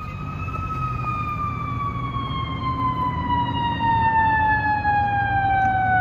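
Approaching fire apparatus siren in one long wail, its pitch falling slowly and evenly, over a low steady rumble, growing louder as it nears.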